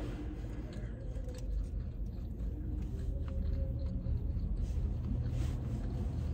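Steady low rumble inside a parked car's cabin, with faint clicks of mouth sounds from chewing kimbab.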